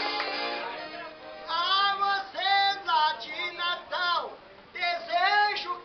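Piano accordion chord fading away, then a man singing a verse in short, high, wavering phrases with brief pauses between them, the accordion soft underneath.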